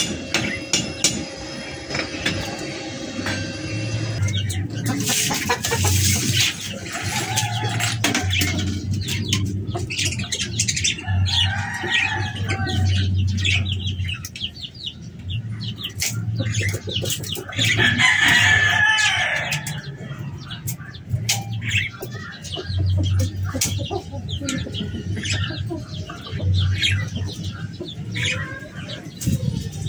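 Chicken clucking and crowing, mixed with sharp metallic taps and clicks, which are most frequent in the first few seconds.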